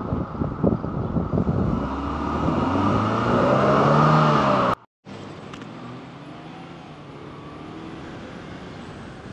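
Wind buffeting the microphone over a vehicle engine, which pulls up through the gears with rising pitch and grows louder. About five seconds in the sound cuts out abruptly, then returns as a quieter steady engine hum with wind noise.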